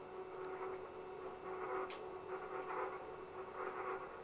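Stepper motors driving the joints of a 3D-printed robot arm: a steady hum under whirring that swells and fades as the axes move, with one short tick about two seconds in.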